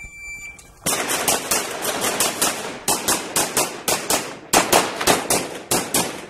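A shot timer beeps to start, and about a second later a pistol fires a fast string of shots, many in quick pairs, ending just before the sixth second.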